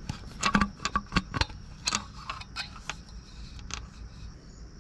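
Irregular metallic clicks and taps, about a dozen, loudest in the first two seconds and then fading: a tool and a loosened spark plug knocking against the motorcycle's cylinder head while the plug is fished out of its spark plug well.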